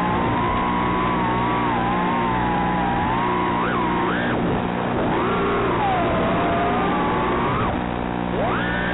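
Toothpick quadcopter's four Mamba Toka 1404 4000kV motors and 3-inch props whining in flight. The pitch wavers with throttle and rises sharply in quick punches about three and a half to four and a half seconds in, and again near the end. The whine sits over a steady hiss.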